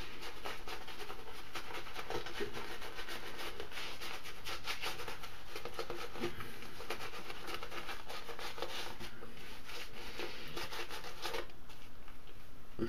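Synthetic shaving brush whisking shaving-soap lather in a shaving bowl: a steady wet rubbing and swishing, full of rapid small crackles. The lather is thick and sticky.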